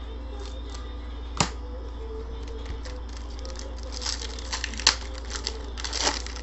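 Foil trading-card pack wrapper crinkling and tearing as it is pulled open, in a run of crisp crackles near the end. A single sharp click comes about a second and a half in.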